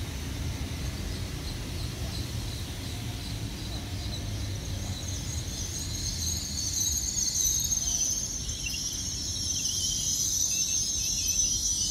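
GWR Hitachi Intercity Express Train rolling through the station with a low rumble. A high-pitched metallic squeal from its running gear comes in about halfway through and grows louder toward the end.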